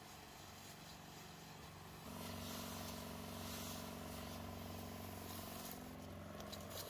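Knapsack sprayer's motor-driven pump humming steadily, with the hiss of spray from the lance. The hum grows louder about two seconds in and drops away near the end.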